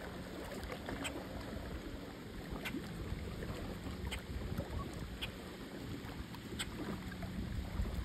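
Small waves lapping at a rocky lakeshore with wind on the microphone, under short sharp chip notes from a bird about every second or so. A faint low hum comes and goes.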